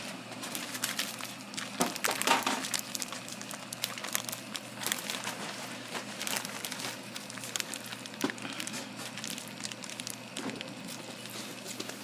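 A plastic bag crinkling and rustling, with irregular crackles, busiest about two seconds in, as it is handled and emptied over a tub of salted anchovies.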